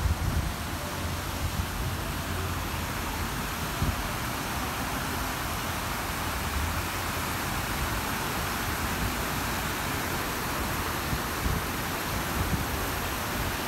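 Steady rushing hiss of a wet city street at night, with low, uneven rumbles of wind on the microphone.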